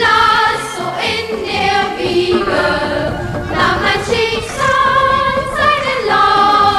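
Music with a choir singing long, held notes that change pitch every second or so.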